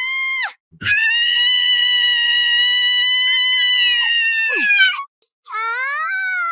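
Cartoon character screams: a short high scream, then one long high scream held at a steady pitch for about four seconds that drops off at the end, then a rising scream near the end.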